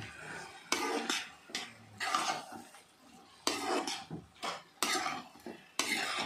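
Metal spatula scraping and clanking against a kadhai while stirring a thick spiced vegetable mash, in about a dozen irregular strokes.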